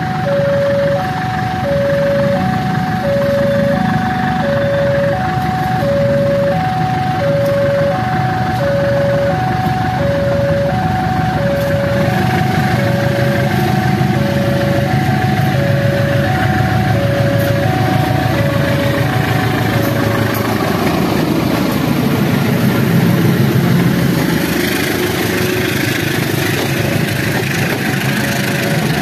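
CC 203 diesel-electric locomotive running as it hauls commuter coaches toward and past, its engine rumble swelling near the end as it goes by close. Over it an electronic warning bell beeps about once a second and stops about two-thirds of the way through.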